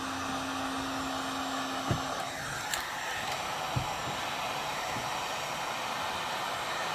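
Small electric heat gun blowing steadily as it heats a length of PVC pipe until it softens, with a low hum that stops about two seconds in and a few faint knocks.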